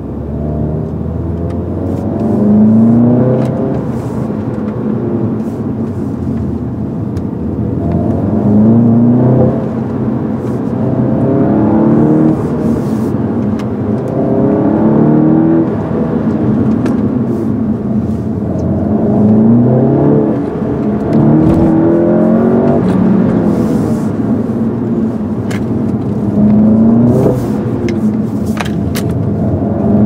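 2013 Volkswagen Golf GTI's 2.0-litre turbocharged four-cylinder engine heard from inside the cabin under repeated acceleration: the pitch climbs, drops back, and climbs again about seven times over.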